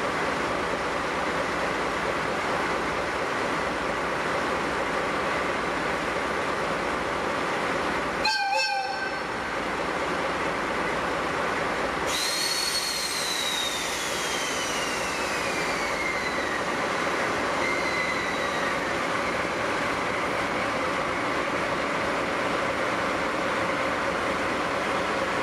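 C58 steam locomotive standing in steam, hissing steadily with faint steady tones beneath. About eight seconds in comes a short, warbling whistle blast. About twelve seconds in, a louder rush of steam starts suddenly, carrying a whistling tone that falls slowly in pitch over several seconds.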